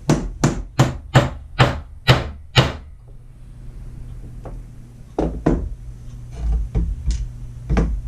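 A hammer striking a doming punch on a steel doming block, about seven sharp blows in quick succession over the first three seconds, doming a small sterling silver disc into a bead. A few lighter knocks and dull thuds follow.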